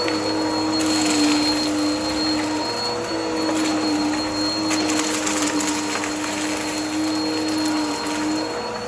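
Vacuum cleaner running steadily, its motor hum shifting slightly in pitch from moment to moment over a high whine, with scattered crackles as debris is sucked up.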